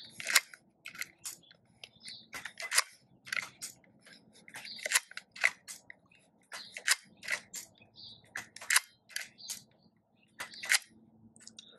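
Bug-A-Salt Shred-ER plastic revolver being cycled by hand: its mechanism clicks sharply as the cylinder turns the reloaded cartridges through, often two clicks close together, roughly one to two a second. The cartridges cycle through without jamming.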